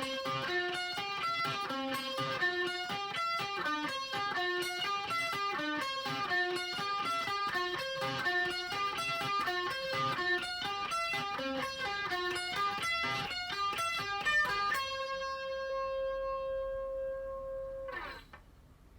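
Electric guitar lead through a Marshall JCM800-style amp and a cabinet loaded with Celestion Vintage 30 speakers: a fast run of single notes, then one note held for about three seconds that is cut off near the end.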